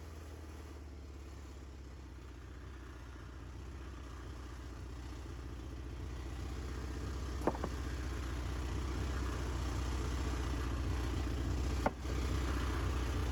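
An engine running steadily with a low hum, growing gradually louder, with two sharp clicks about halfway through and near the end.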